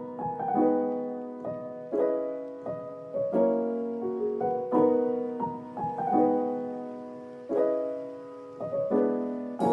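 Slow, gentle piano music, soft chords struck about once a second and left to ring and fade.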